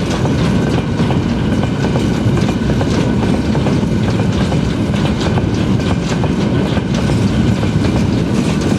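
Freight train wagons rolling past close by, a loud steady rumble with the wheels clicking and clattering over the rails.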